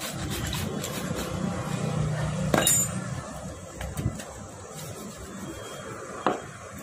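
Metal handling noises from a motorcycle front fork tube being worked on: one sharp, ringing metallic clink about two and a half seconds in and a couple of lighter knocks later, over a low steady background rumble.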